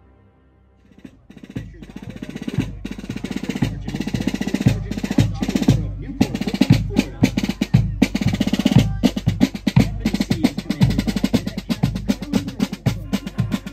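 Soundtrack music carried by fast snare drumming and drum rolls, starting about a second in and building in loudness.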